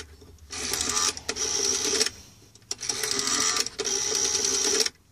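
The rotary dial of a GPO 332 Bakelite telephone is turned and whirs back three times, ticking out its pulses as 1471 is dialled.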